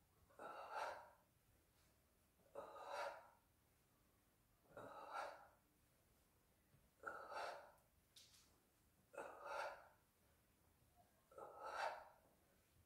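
A person breathing audibly and rhythmically, one forceful breath about every two seconds, six in all.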